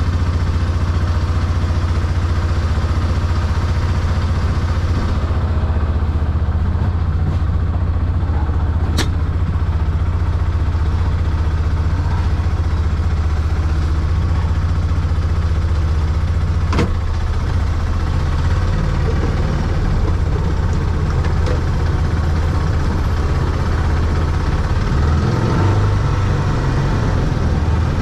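Arctic Cat side-by-side's engine running steadily, a constant low drone, with two short sharp clicks about eight seconds apart.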